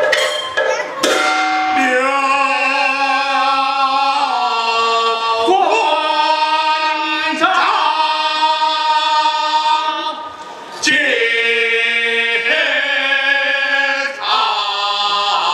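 Sichuan opera singing: long held vocal lines that slide and waver in pitch, punctuated by a few sharp percussion strikes.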